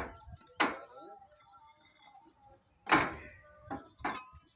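A few sharp knocks and clatters, the loudest a little before the end, some with a brief ringing tail.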